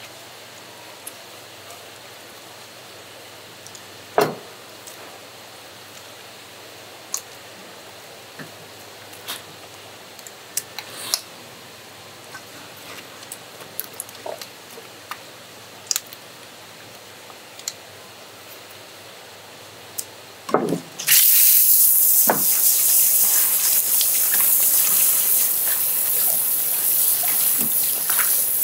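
Scattered small clicks and knocks over a low steady background, then about three quarters of the way through, running water starts suddenly and keeps gushing loudly, like a tap or spray hose turned on full.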